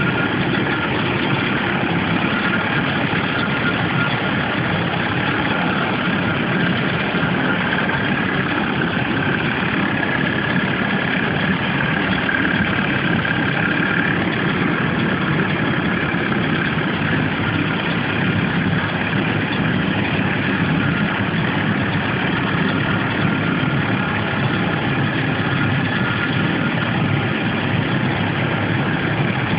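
Steady rush of water pouring into a canal lock through the upper gates as the chamber fills, churning the water in the chamber.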